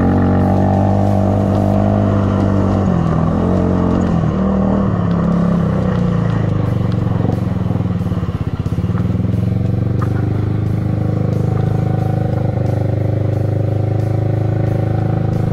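Mini quad engine running as the skied and tracked quad is ridden, with background music over it; from about halfway it settles into a steady idle with an even pulsing beat.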